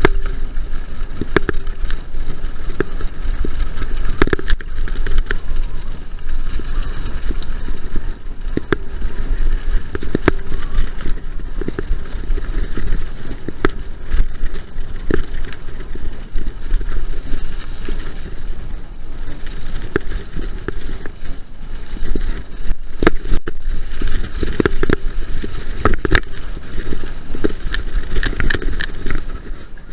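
Mountain bike ridden fast over a rough, muddy forest track: a constant heavy rumble of tyres and wind buffeting the camera microphone, with frequent clatters and knocks from the bike jolting over bumps.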